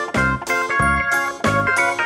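Background music with a steady beat and short, evenly repeated notes.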